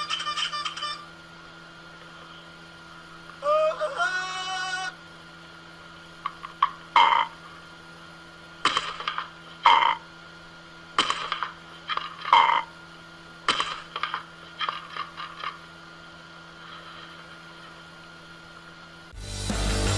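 Amazon parrot squawking: one longer call with a rising pitch, then a run of short, sharp squawks, each under half a second. A louder burst of sound cuts in near the end.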